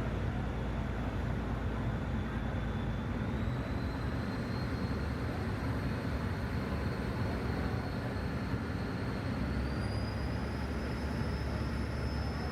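Passenger ferry's engine running steadily underway, a continuous low rumble. A faint high whine sits above it and steps up in pitch twice.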